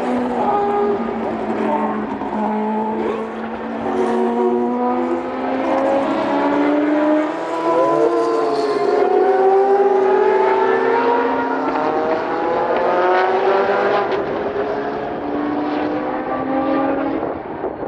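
Race car engines, among them the Mazda 787B's four-rotor rotary, running at varying revs. The pitch drifts slowly up and down, with one quick blip of revs about eight seconds in.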